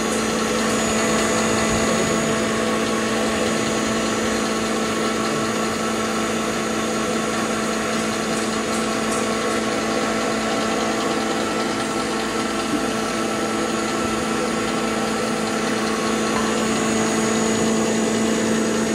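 Electric cumin grinder (pulveriser) machine running steadily, grinding cumin seed into powder, with a constant hum.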